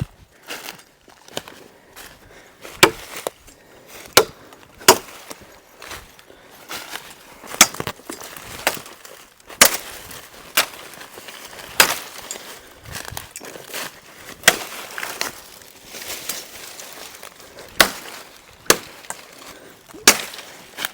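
Machete chopping limbs off a felled sycamore: sharp single blows into green wood, irregularly spaced, about one a second.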